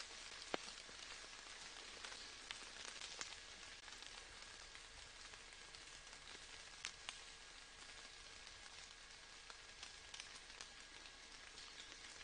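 Faint steady rain: a soft, even hiss of falling rain with scattered small drop ticks. A few louder single drops stand out, about half a second in, around three seconds, and near seven seconds.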